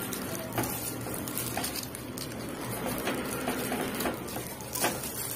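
Light rustling and small irregular taps of plastic-gloved hands placing sausage slices and beef pieces on a mini pizza, with a sharper click a little before the end.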